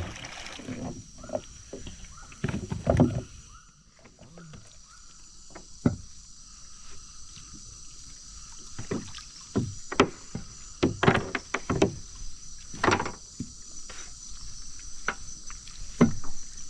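Small boat on the river: irregular knocks and splashes as the hull and gear are handled on the water, over a steady high-pitched insect drone.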